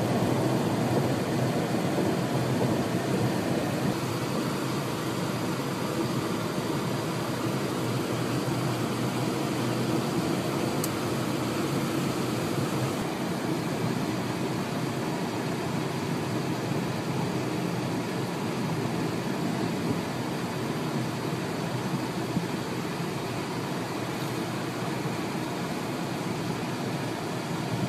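Steady road and engine noise of a car driving at freeway speed, heard from inside the cabin.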